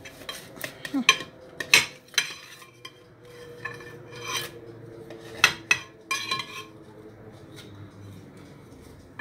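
Metal knife clinking and scraping against a glass pie dish as slices of baked layered flatbread are pried apart and lifted, in a series of short scrapes and clinks over the first six or seven seconds.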